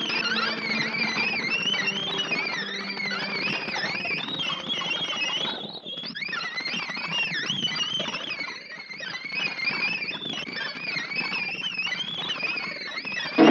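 Cartoon soundtrack of high, warbling tones whose pitch wavers up and down continuously, several at once, in a theremin-like sound. It thins briefly about six seconds in and again around nine seconds.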